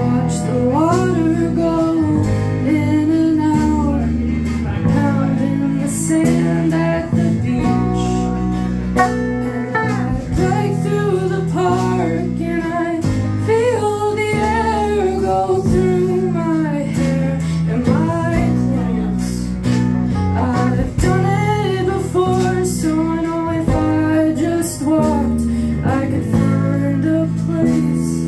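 A small live band playing a song: a woman singing over a strummed acoustic guitar, with electric guitar and electric bass backing her.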